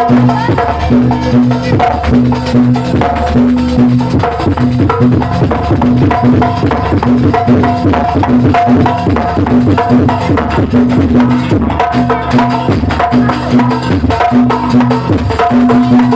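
Javanese jaranan music: fast, dense drumming under short pitched notes that repeat in a steady pattern, about two a second.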